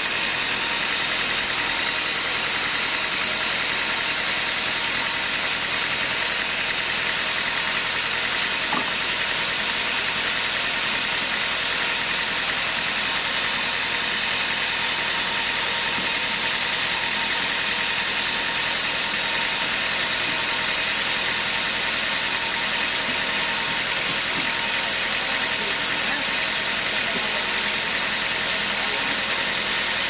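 Band sawmill running steadily, its engine and blade turning with an even, unchanging hum.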